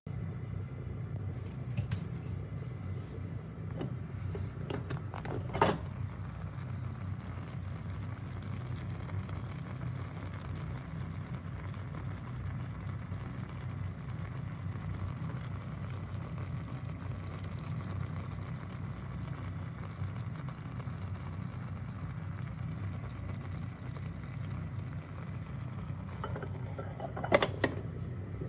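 Steady low hum of a kitchen while a pot of vegetables cooks on the stove, with a sharp clink about six seconds in and a few quick clinks near the end.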